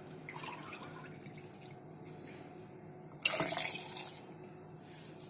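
Milk poured from a glass into a plastic blender jar: a splashing pour starting about three seconds in and trailing off over about a second.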